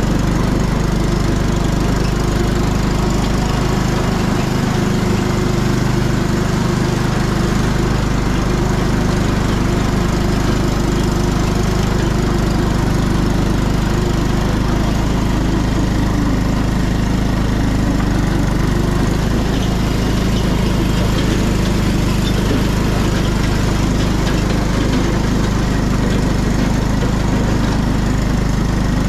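John Deere tractor's engine running steadily under load while towing a pop-up camper trailer across grass.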